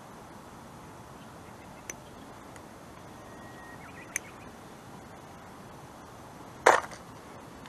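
Steady faint outdoor hiss with two light ticks, then one short, loud noise near the end.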